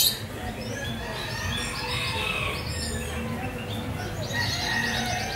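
Many caged show birds chirping and calling over each other, with a rapid trill near the end.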